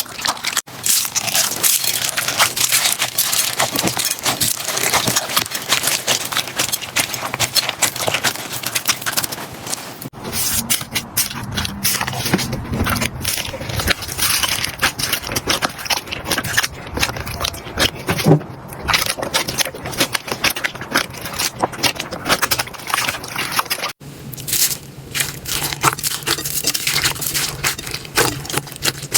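Slime being pressed and squished, a dense crackling of many tiny pops and clicks, changing in character abruptly about ten seconds in and again near the end as one slime gives way to another.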